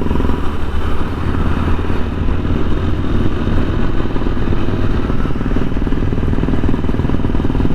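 Single-cylinder engine of a TVS Apache RTR 160 4V motorcycle running steadily under way, heard from the rider's position with road and wind noise.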